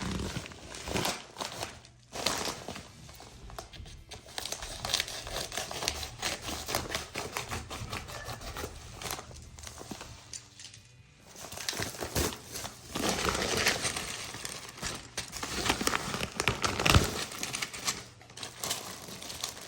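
A parts package being unpacked by hand: plastic bags and packing material crinkling and rustling, with irregular small clicks and rattles from loose LEGO pieces. There is a short lull about halfway through.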